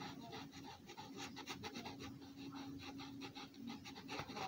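A red Sharpie marker's felt tip scratching on paper in many quick, short strokes as it fills in colour.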